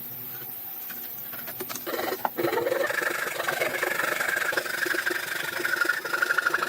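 A power tool works on wood, starting up about two seconds in and running steadily with a wavering whine.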